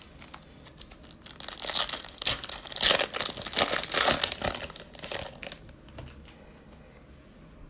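Foil wrapper of a baseball card pack being torn open and crinkled by hand: a run of dense crackling from about a second in until about five and a half seconds, then it dies away.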